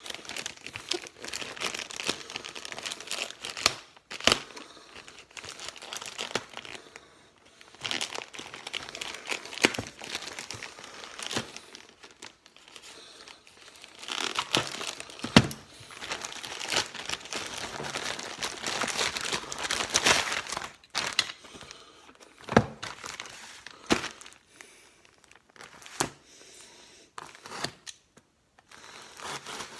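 Packaging being handled: a plastic package and a shipping mailer crinkling and rustling, with tearing as the mailer is slit open with a small safety cutter, and a few sharp knocks along the way.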